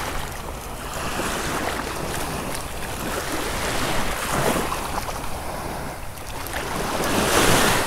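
Ocean surf washing steadily, with one wave swelling up about halfway through and another near the end.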